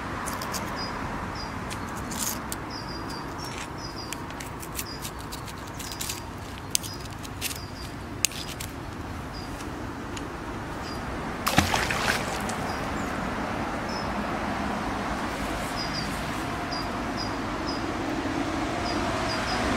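Outdoor ambience by a river: a steady rush of background noise with small birds chirping over and over, a scatter of light clicks, and a brief clatter about eleven and a half seconds in.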